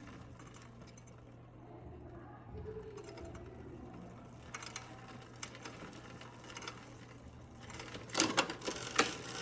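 Bicycle drivetrain turned by hand on a 3x8 hybrid, the chain running quietly over the chainrings and cogs while gears are checked for rub. Sharp clicks of gear shifting about five seconds in and a louder cluster near the end.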